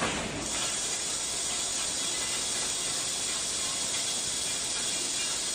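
An automatic welded wire mesh welding machine makes one last welding stroke, then stops welding about half a second in. A steady hiss follows.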